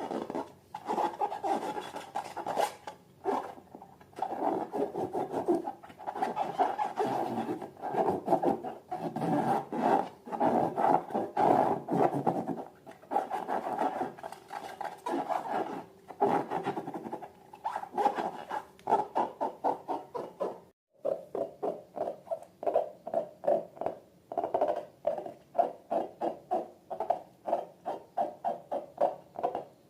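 Slime being squeezed and worked by hand with wet, rubbing squelches. After a brief pause about two-thirds of the way in, it becomes a steady squeeze rhythm of about two squelches a second.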